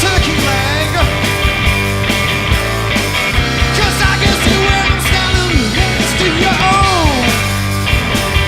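Live rock band playing an instrumental passage: a lead line sliding and bending in pitch over bass and a regular drum beat.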